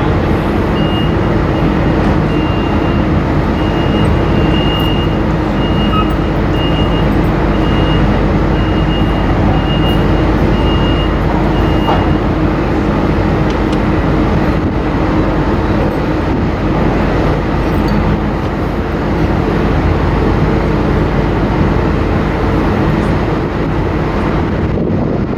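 Steady drone of a ferry's engines and machinery with a low hum, the MV Salish Eagle under way. A high-pitched beep repeats at an even pace from about a second in until about halfway through, then stops.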